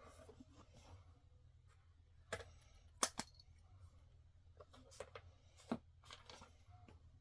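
Handling noise from items being unpacked and fitted together: scattered sharp clicks and taps with faint rustling, the loudest a quick double click about three seconds in.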